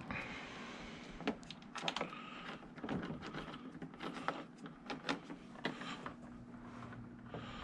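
Irregular light clicks and taps of hands working a screwdriver and small screws while fitting the tail fins to a foam RC jet.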